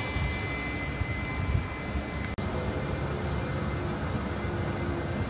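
Manchester Metrolink tram running: a steady rumble of wheels and motors with a faint whine.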